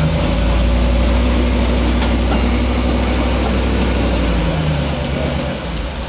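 Jeep rock crawler's engine running at low revs while it crawls over boulders, a steady deep drone that eases off about four and a half seconds in.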